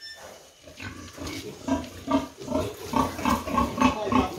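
Pigs grunting in short, quick, repeated grunts, about three a second, getting louder toward the end.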